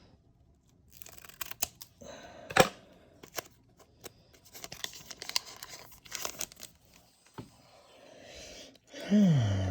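Foil wrapper of a Pokémon booster pack being opened: tearing and crinkling with many small sharp clicks. A brief vocal sound with a falling pitch comes near the end.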